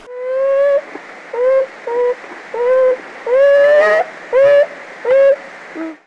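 Beaver giving a run of about eight short whining calls, each bending slightly upward in pitch, the last one lower.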